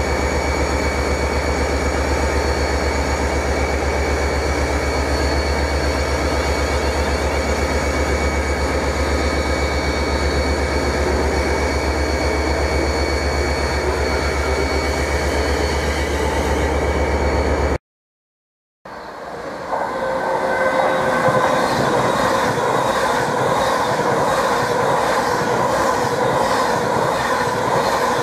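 A London Midland Class 350 Desiro electric multiple unit passes slowly, with a steady hum and whine from its traction equipment. After a sudden cut and about a second of silence, a Virgin Pendolino electric train passes at speed with a rhythmic clatter of wheels and its own steady whine.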